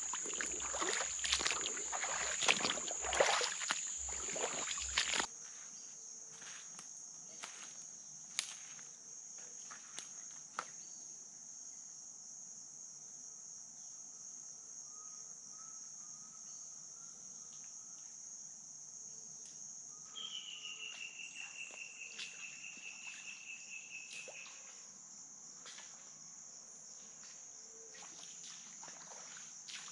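Feet wading and splashing through shallow floodwater for the first five seconds, over a steady high-pitched drone of insects. Later the insects run on alone, joined about two-thirds of the way in by a rapid pulsed trill lasting about four seconds.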